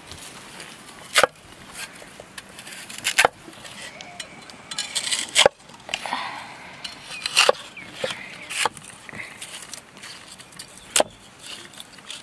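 Six sharp single chopping strokes on a wooden surface, spaced one to two and a half seconds apart.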